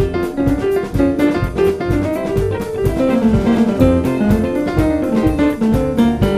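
Live band playing upbeat instrumental music: a steady drum-kit beat under guitar and melody lines.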